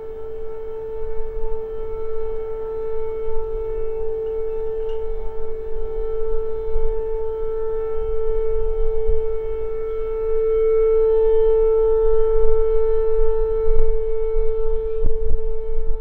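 Civil defence air raid siren holding one steady, unwavering tone, with a low rumble underneath.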